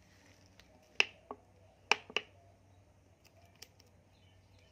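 A few light, sharp clicks and taps, the strongest about one and two seconds in, as a tin of condensed milk is handled and tipped to pour into a glass with a spoon in it.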